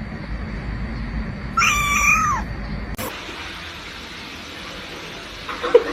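A cat meows once, a short high call about a second and a half in.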